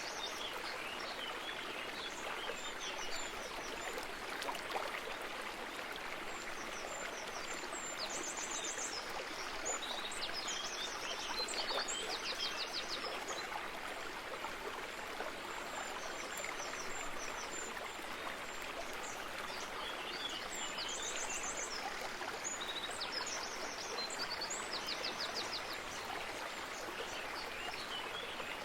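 Steady rush of running water, with short, high bird chirps in two spells, about a third of the way in and again past two-thirds.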